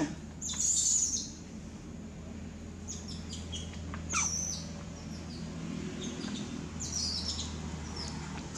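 Birds chirping: groups of short, high calls about half a second in, around three to four seconds in, and around seven seconds in, over a low steady background rumble.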